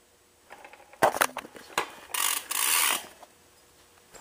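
BMX bike drivetrain worked by hand: a few sharp clicks about a second in, then a loud ratcheting buzz for about a second.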